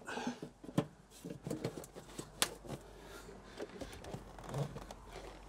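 Loose electrical cables being handled and pulled out along a van's stripped floor: irregular rustling and scraping with a few sharp clicks, the sharpest about two and a half seconds in.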